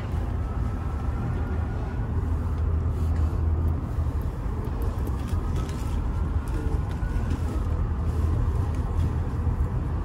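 Steady low rumble heard inside a moving aerial tramway cabin, the Roosevelt Island Tram, with a faint whine that slowly rises and falls.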